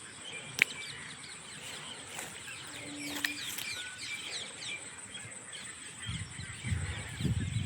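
Small birds chirping, with many quick short calls, over a steady thin high-pitched hiss. There is a sharp click under a second in, and low rumbling thumps near the end.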